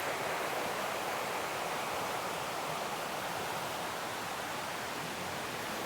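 Mountain valley stream rushing steadily: an even, unbroken hiss of running water.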